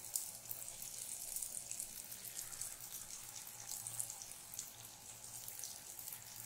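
Jalebi batter frying in hot oil in a pan: a steady, fairly faint sizzle with fine crackles.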